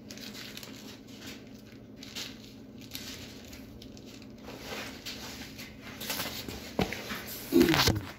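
Faint, irregular handling and rustling noise over a steady low hum. About seven seconds in come a sharp knock and louder scraping as a hand grabs the phone, then a short grunt falling in pitch.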